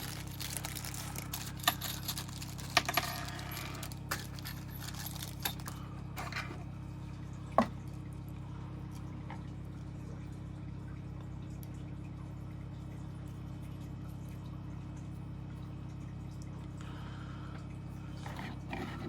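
Small objects being handled: a few sharp clicks and knocks in the first eight seconds, one louder knock near the middle, over a steady low hum that then continues alone.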